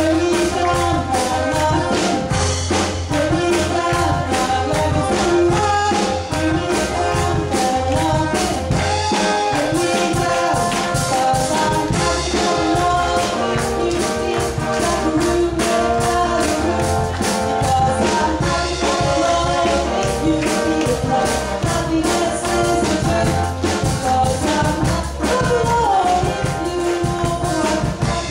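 Upbeat song with a steady beat, a singer on a handheld microphone carrying the melody over the backing music.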